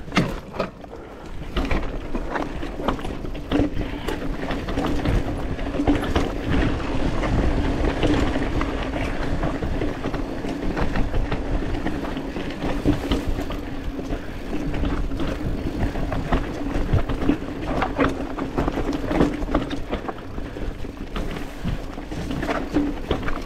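Commencal Meta TR 29 full-suspension mountain bike riding down rough, rocky singletrack: tyres crunching over rock and dirt, with the bike rattling and knocking over bumps all the way, a steady buzz underneath, and wind on the microphone.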